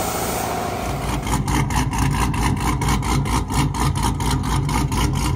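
A steady rushing noise, cut off about a second in by a deep engine running with an even, pulsing beat of about five pulses a second.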